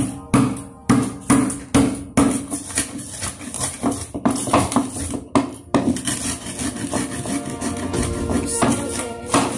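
Stone pestle pounding spices in a mortar, sharp knocks about twice a second that thin out after about six seconds, over background music.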